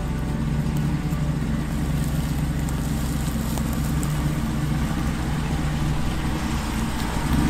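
The 6.4-litre HEMI V8 of a Jeep Wrangler Rubicon 392 runs steadily at low revs as the Jeep crawls slowly over a rocky dirt trail.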